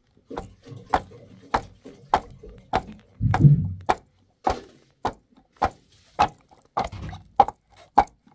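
Knife chopping food on a cutting board in steady, even strokes, a little under two a second. A brief louder low sound comes near the middle.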